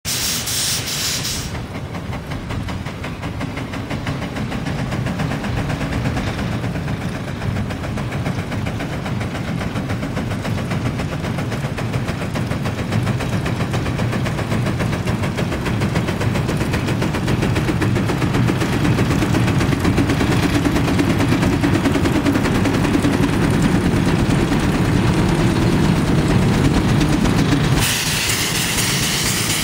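Steam engine of a road steam locomotive on a rubber-tyred truck chassis running, its exhaust chuffing in rapid beats that grow a little louder. Steam hisses from the open cylinder cocks at the start and again near the end.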